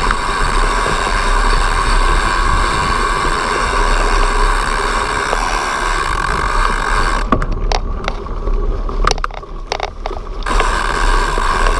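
Mountain bike riding along a dirt trail, heard from a camera on the bike: a steady rush of wind and tyre noise. About seven seconds in the rush drops away for roughly three seconds, leaving a few sharp knocks, then comes back.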